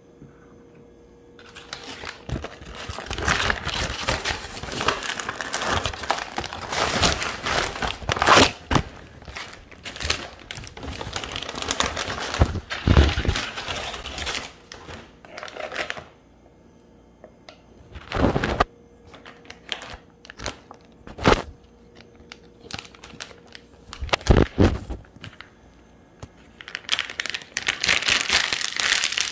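Plastic candy and snack wrappers crinkling as they are handled and put into a plastic bowl. There is one long stretch of rustling, then three short bursts, then more rustling near the end.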